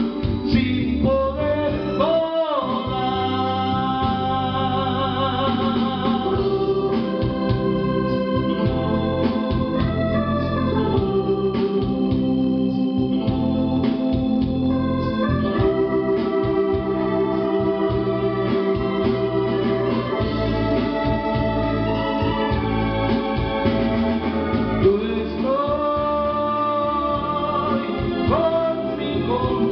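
Backing music led by a sustained organ, with a man singing into a microphone over it for the first few seconds and again near the end; through the middle the music plays on without the voice.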